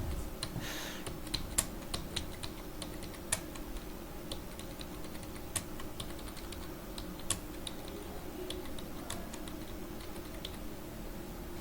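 Keystrokes on a computer keyboard, typed at an uneven pace a few clicks a second, with a faint steady hum underneath.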